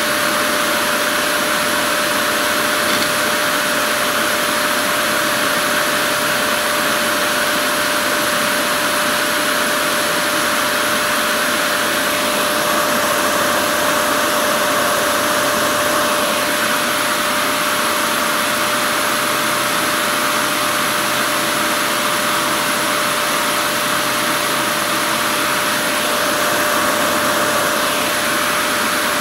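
Wood lathe running steadily with a lathe knife cutting a spinning wooden spindle: a constant whir with a thin steady whine and the hiss of the cut, swelling slightly a couple of times as the blade bites.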